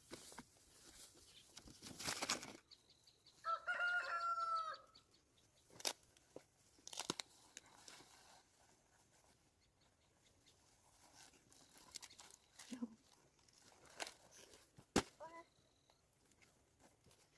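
A rooster crows once, about three and a half seconds in, with a shorter chicken call near the end. Scattered rustles and sharp clicks come and go.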